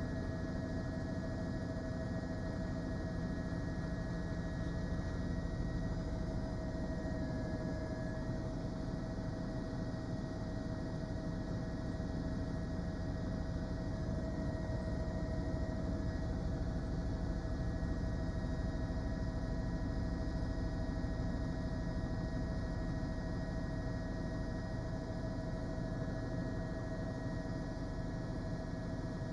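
Steady machine hum with several held tones, picked up on an open live-broadcast microphone.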